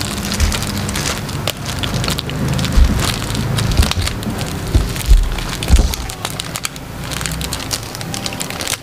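Plastic bag crinkling and crackling as a packet of fermented pork skin is handled and unwrapped, with a few dull knocks from handling.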